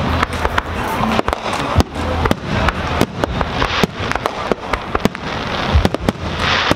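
Aerial fireworks shells bursting overhead during a display: many sharp bangs in quick, irregular succession over a continuous noisy background.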